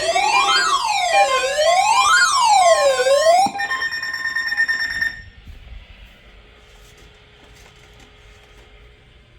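Electronic siren tone wailing up and down, rising and falling about once every second and a half, then a steady high beep for about a second and a half. It cuts off about five seconds in, leaving a quiet hiss of radio static.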